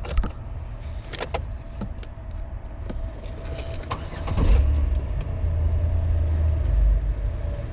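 Replacement HVAC blend door actuators in a 2008 Chevrolet Impala dash running with the power on, with a faint steady hum and a few sharp clicks. A loud low rumble comes in about four seconds in.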